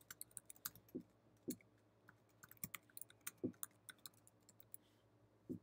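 Faint typing on a computer keyboard: rapid keystroke clicks in two runs with a short pause between, and a few duller thumps among them.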